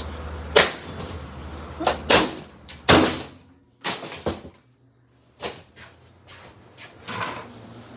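A running box fan's motor hums steadily for about two seconds, then stops, while about eight sharp knocks and bangs on its plastic housing come at irregular intervals.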